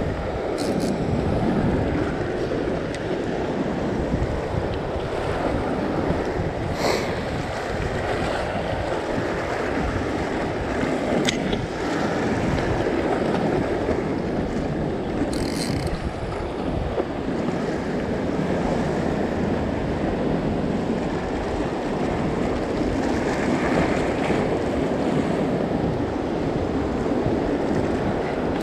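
Ocean surf washing and breaking against a rock ledge, a steady rushing noise, with wind buffeting the microphone. A few short sharp clicks stand out now and then.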